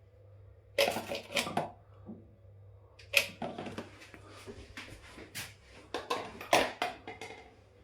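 Small clicks, knocks and rattles in four short clusters, from hands working with tools or wiring fittings, over a faint steady hum.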